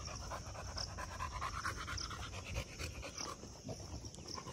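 A dog panting close by.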